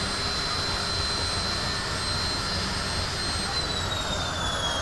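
Large steam-powered circular sawmill blade spinning with a steady high whine over the noise of the mill. About three and a half seconds in, the whine starts to drop in pitch as the blade slows.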